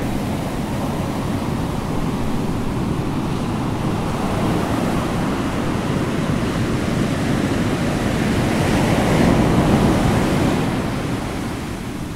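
Steady rushing noise like ocean surf, swelling to its loudest about nine seconds in and then easing off.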